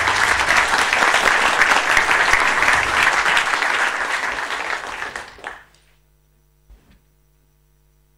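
Audience applauding, many hands clapping at once, fading out about five and a half seconds in. A faint steady electrical hum is left, with one small knock shortly after.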